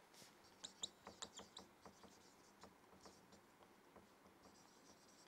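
Faint squeaks and ticks of a marker pen writing on a whiteboard: a quick run of short strokes in the first second and a half, then sparser ones.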